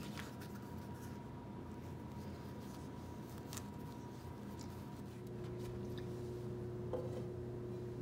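A cotton sock being stuffed by hand into a small plastic cup: soft fabric rustling with a few faint scrapes and clicks of the cup, over a steady background hum.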